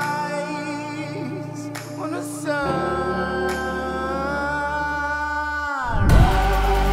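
Music: a singer holds long, wavering notes over sustained chords. Near the end the sound slides down in pitch and a heavy electronic bass beat drops in.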